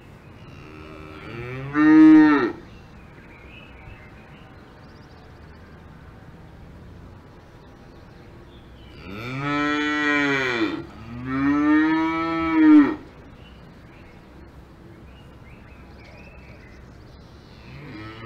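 Cows mooing: one long moo a couple of seconds in, then two moos back to back around the middle, and another starting at the very end, over a faint steady pasture background.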